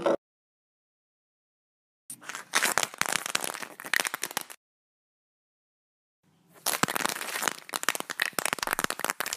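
Crunching, crackling sound effect of a cartoon egg shell cracking, in two bursts: one about two seconds in lasting a couple of seconds, and a longer one starting about six and a half seconds in.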